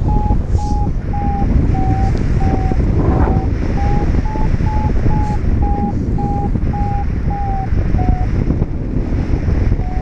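Wind rushing over the microphone in flight, with a paragliding variometer beeping about twice a second. The beeps are its climb tone, sounding in rising air, and their pitch wavers slightly. The beeps stop about eight seconds in.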